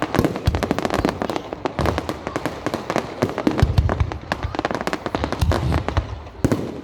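Fireworks going off: a dense, continuous crackle of many small bangs, with several deep booms among them.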